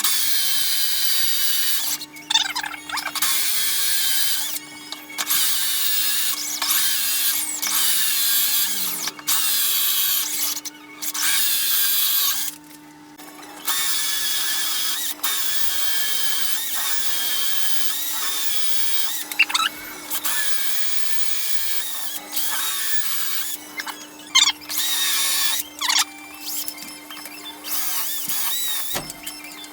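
Power drill boring holes into a wooden vise jaw, running in repeated runs of one to three seconds with short stops between. This is the Forstner-bit marking and 5 mm pilot drilling of the vise mounting holes.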